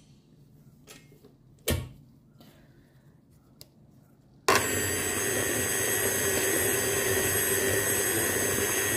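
A single sharp knock a little under two seconds in, then about halfway through a stand mixer switches on suddenly and runs steadily, its motor humming with high whining tones as the beater creams butter and sugar in a steel bowl.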